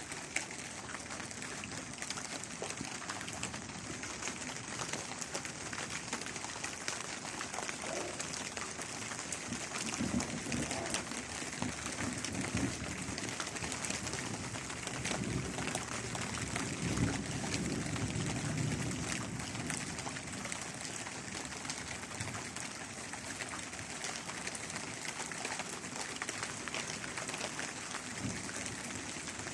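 Heavy rain falling steadily, a dense patter of drops. A deeper sound swells for a few seconds around the middle.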